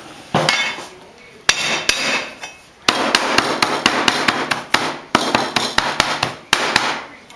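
Chinese cleaver chopping a garlic clove on a plastic cutting board: a few separate knocks at first, then about four seconds of rapid chopping, roughly five strikes a second, as the garlic is minced.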